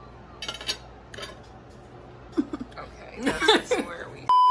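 A person laughing and chuckling with a few murmured sounds, then near the end a loud, steady electronic bleep tone cuts in suddenly.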